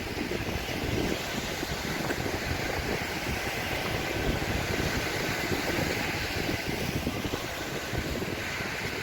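Wind buffeting the microphone in a steady fluttering rumble, over the even wash of sea surf.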